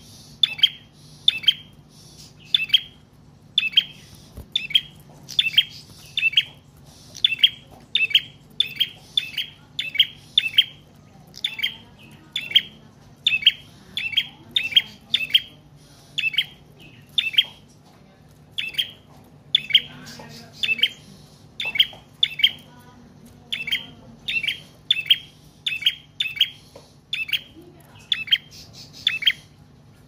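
Caged prinia (prenjak trotol) calling steadily: sharp, loud chip notes about two a second, in short runs of two to four with brief gaps between.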